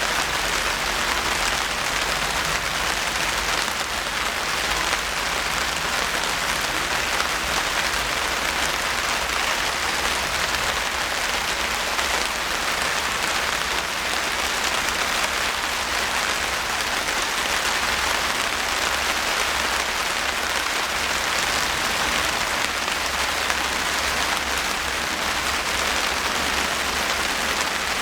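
Steady rain falling, the drops hitting surfaces in an even, unbroken hiss.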